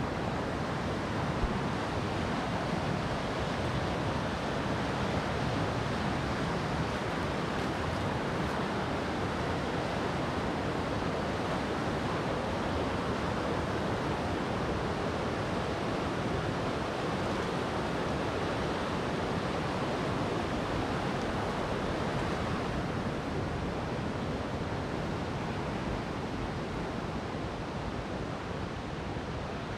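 Steady rushing of fast river rapids on the Kymi river, a continuous wash of white water, a little fainter near the end.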